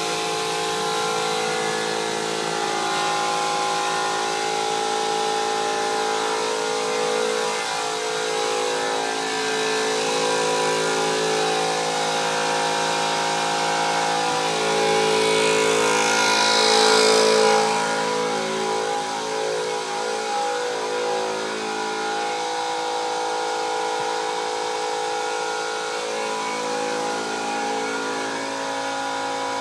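A motor running steadily, a drone of several steady tones. A louder hiss comes in for a couple of seconds about halfway through.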